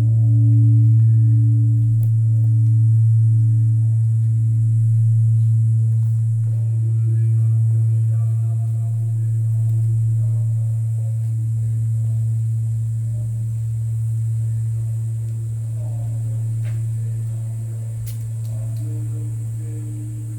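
Large Korean bronze temple bell (beomjong) humming low as it dies away after a strike. The hum swells and fades every couple of seconds and slowly gets quieter.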